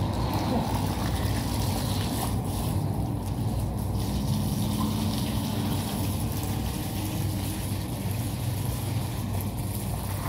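Water spraying steadily from a hose wand onto a wet rolled carpet, over a constant low hum.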